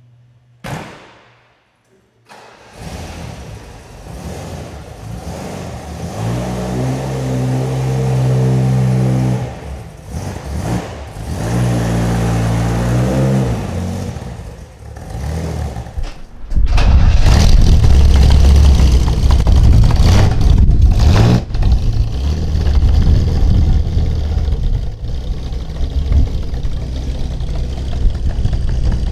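A single thump just under a second in, then a Jaguar XJ-C's V12 engine starts up and runs, with two spells of revving. From about 16 seconds in, a louder, deeper steady engine rumble takes over.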